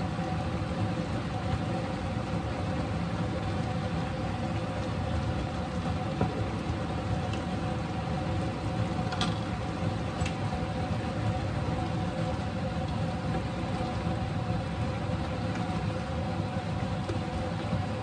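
Steady whirring hum of a kitchen fan running, with two even tones in it, over a pan of adobo simmering on the cooktop; two faint ticks about nine and ten seconds in.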